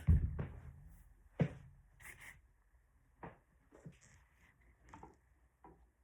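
Handling noise: a thump, then a sharp knock about a second and a half in, followed by a string of lighter clicks and taps.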